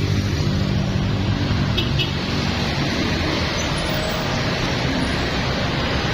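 Road traffic noise: a heavy vehicle's engine running for about the first two seconds, then a steady rush of passing traffic.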